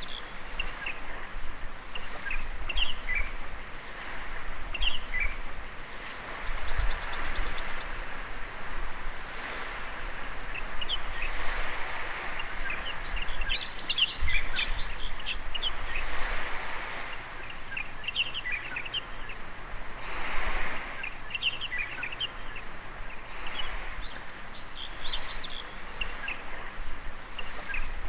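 Small waves washing onto a beach, swelling and fading every few seconds, with birds chirping throughout and one quick trill of high notes about seven seconds in.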